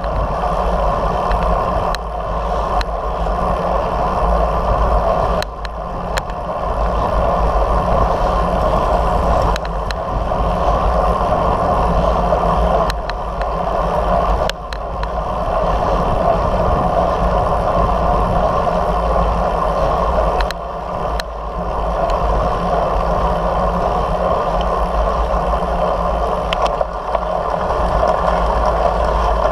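Steady wind rush and road rumble on a bicycle-mounted camera riding along at speed, with a few faint clicks and brief dips in the noise.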